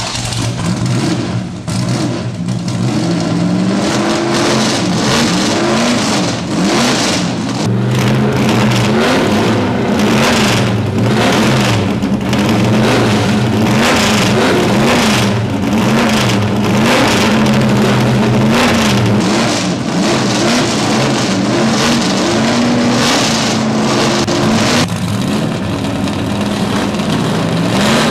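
The V8 engines of two vintage Chevrolet Corvette race cars, a 1968 L88 and a 1969 competition car, revving while parked, pitch rising and falling over and over. They settle to a steadier run about three seconds before the end.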